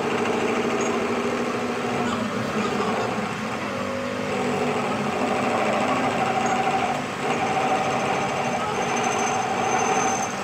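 A motor-driven workshop machine running steadily: several steady tones over a rough, continuous noise, with a higher tone joining about four seconds in and a brief dip about seven seconds in.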